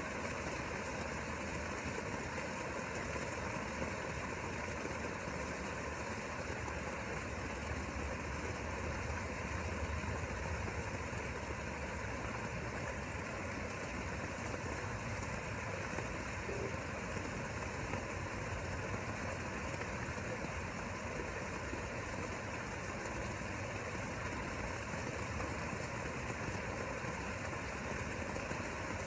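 Steady mechanical hum with a low drone that holds at an even level, unchanging throughout.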